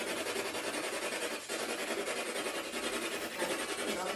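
Steady hiss of static, broken by a couple of brief dips.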